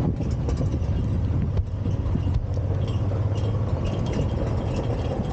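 Side-by-side utility vehicle's engine running steadily at low speed on a gravel track, with a steady low hum and many small clicks and rattles.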